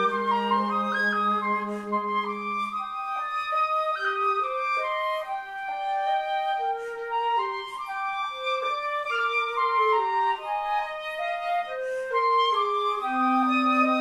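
Flute trio of piccolo, concert flute and alto flute playing a slow melody in harmony. The alto flute holds a low note under the upper voices, drops out about three seconds in and comes back near the end.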